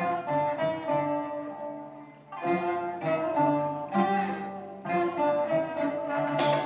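Live string ensemble of violins and cello with a plucked string instrument playing an instrumental passage in short phrases that swell and fade every second or two; the sound fills out with more instruments near the end.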